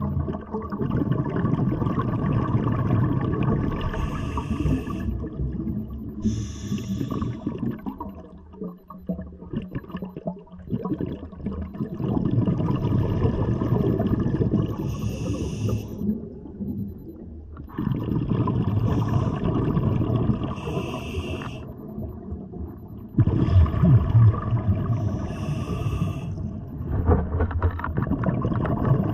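Scuba diver's regulator breathing, heard underwater: exhaled bubbles running for several seconds at a time, broken by short hissing breaths drawn in through the regulator.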